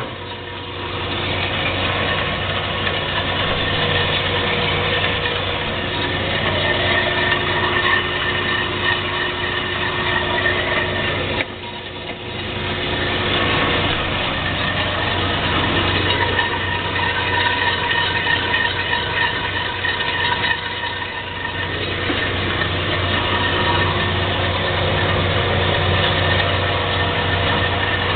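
Jet 10" x 18" horizontal band saw running free, with its motor and turning blade making a steady hum with a whine over it. The sound dips briefly about eleven seconds in, then comes back up.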